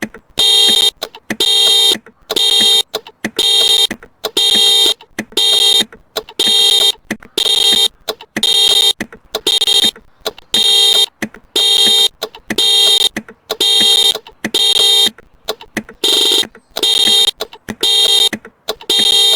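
2018 Hyperion Tadashi Hybrid's car alarm going off, sounding the same honk over and over at an even pace of about one and a half blasts a second.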